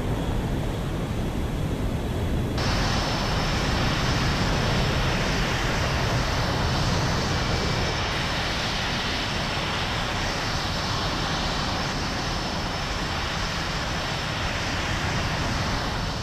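Jet aircraft engines running: a steady, dense rush of noise. About two and a half seconds in it turns abruptly brighter and hissier.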